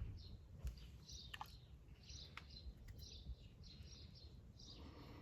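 Faint birds chirping over and over, with a few light clicks and knocks of handling.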